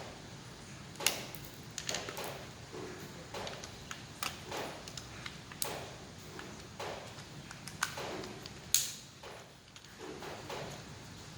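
Irregular clicks, taps and knocks of a 12 V cordless drill's plastic housing and small parts being handled and pulled apart by hand, with a sharp click about a second in and another near the end.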